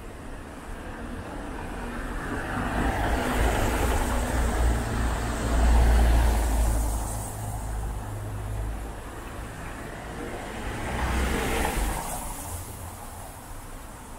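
A car driving along a wet paved street, its engine rumble and tyre hiss swelling as it approaches and passes. It is loudest about six seconds in, swells again near twelve seconds, then fades.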